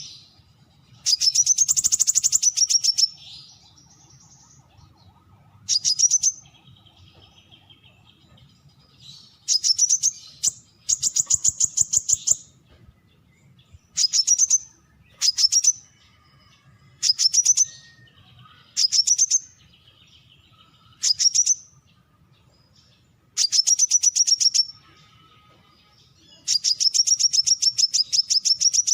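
Brown-throated sunbird calling: about eleven fast, high-pitched trills, each a rapid run of sharp notes lasting from half a second to over two seconds, separated by short pauses. Softer, lower chattering notes fill some of the gaps.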